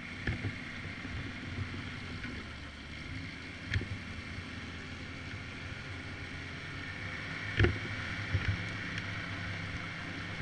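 Snowmobile engine running steadily at cruising speed, with track and wind noise, heard from the machine itself. A few short knocks cut in, the loudest about seven and a half seconds in.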